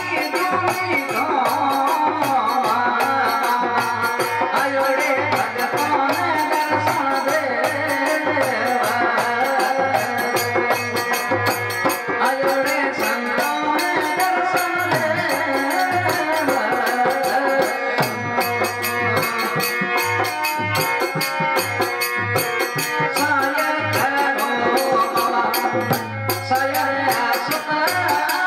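Rajasthani devotional folk music: a harmonium melody over a steady dholak beat, with the rattle of hand-held clappers keeping time.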